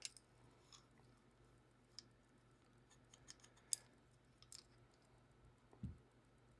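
Near silence with scattered faint light clicks and ticks of a folding knife's small parts being handled and fitted back together, and a soft low bump near the end.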